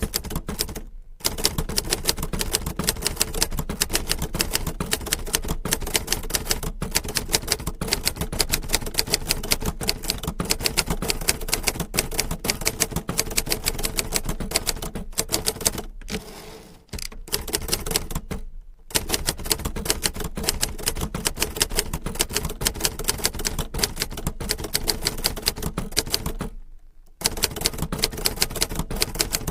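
Typewriter being typed on steadily, a fast run of key strikes broken by a few short pauses.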